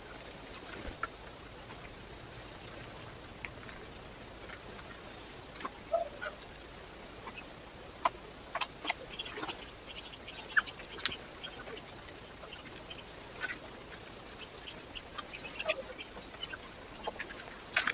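Birds feeding at a bird feeder: irregular sharp taps and clicks, thickest from about six seconds in, over a steady hiss from the trail camera's microphone.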